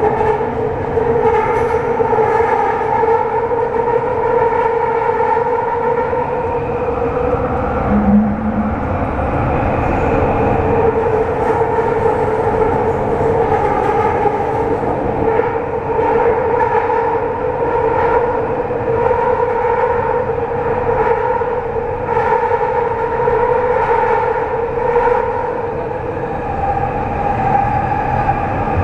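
Kelana Jaya Line LRT train running at speed through a tunnel: a steady two-tone hum over wheel and rail rumble, with faint scattered clicks and a brief low tone about eight seconds in.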